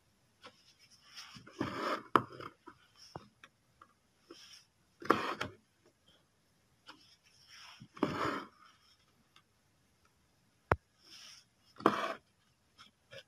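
Embroidery thread being pulled through cloth stretched in a hoop: four separate swishes, about every three to four seconds, with two sharp clicks in between.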